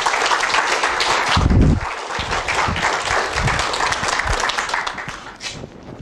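Audience applauding, dying away near the end, with a low thump about a second and a half in.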